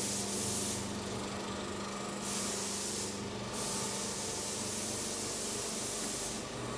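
Paint sprayer spraying wall paint: a steady motor hum under a loud hiss of spray that starts and stops several times as the trigger is pulled and released.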